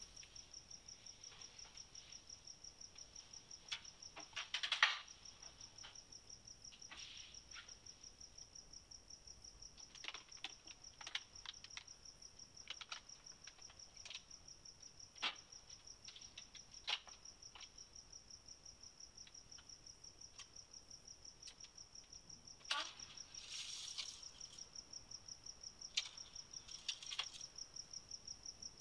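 Faint kitchen clatter of cocoa being made: scattered clinks and knocks of a spoon and cookware, over a steady high chirp that pulses about four times a second.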